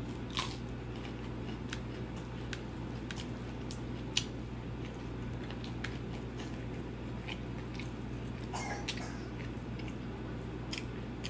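A person chewing a mouthful of rice and curry, with scattered small wet mouth clicks and one sharper click about four seconds in, over a steady low hum.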